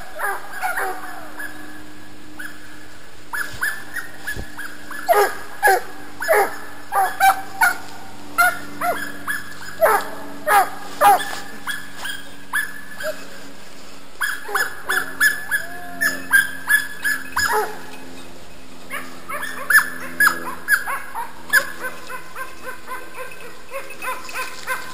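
Hunting dogs giving tongue on a wild boar chase: high, sharp yelps and barks in quick runs, broken by short pauses.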